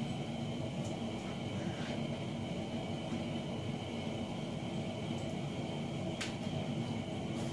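Steady mechanical hum with a thin high whine above it, and a faint click about six seconds in.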